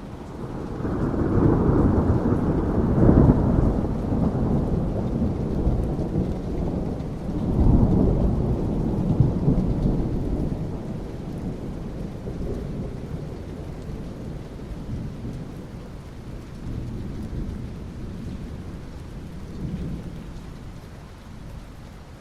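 Thunder rumbling over steady rain. A long, deep roll builds in the first few seconds, a second peals out about eight seconds in, and both fade away, leaving the rain hiss with faint distant rumbles.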